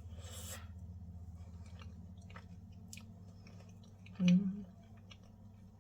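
A person chewing a soft protein roll, with faint wet mouth clicks over a steady low hum, and a short voiced 'mmm' of approval about four seconds in.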